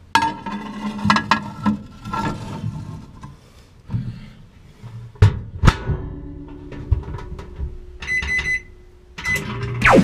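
Background music with drum and percussion hits, including two loud strikes about five seconds in; a short high beep about eight seconds in.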